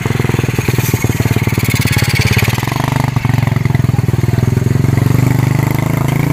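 An engine running steadily and loud, with a fast, even pulse throughout.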